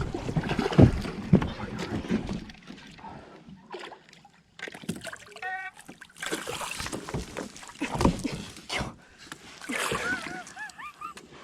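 Heavy thumps and knocks in a small fishing boat, with water splashing, as a big bass is fought and landed. The thumps are loudest in the first couple of seconds.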